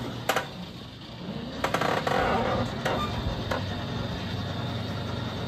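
Homemade mini electric truck creeping along in reverse: loose metal parts clink and rattle, with a few sharp clicks, over a low steady hum from its electric drive, which is running on a 48-volt system boosted to about 60 volts.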